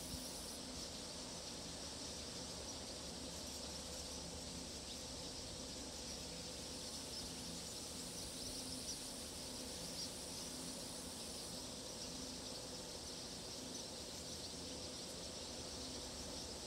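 Steady outdoor chorus of insects such as crickets: a high, even hiss with a faint low hum beneath.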